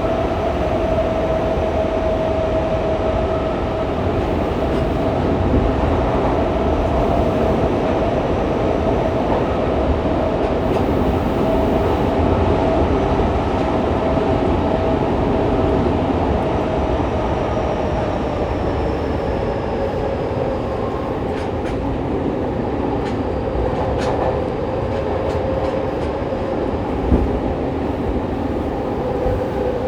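Fukuoka City Subway 2000 series train with a Hitachi GTO-VVVF inverter running between stations, heard from inside the car: a steady rumble with a tone that slowly drops in pitch toward the end, and a few light clicks a little after the middle.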